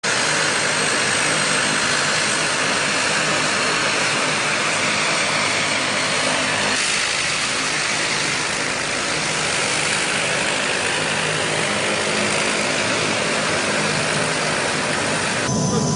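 Aircraft engine running steadily: a dense rushing noise over a low, even hum. The sound shifts abruptly about seven seconds in and again near the end, as at edits.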